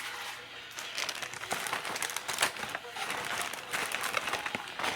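Hands rummaging and handling small objects: crinkling and rustling with many irregular light clicks.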